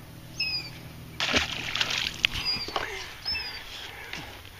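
A largemouth bass splashes as it is let back into the lake about a second in, a short noisy burst of water. A bird overhead gives a short, high, falling chirp three times.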